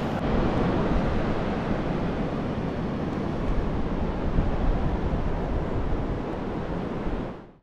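Sea surf washing on the shore, with wind buffeting the microphone, a steady rushing noise that fades out just before the end.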